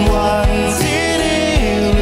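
Live pop-rock band playing: electric and acoustic guitars, bass and a drum kit with a steady kick-drum beat, under a sung vocal line.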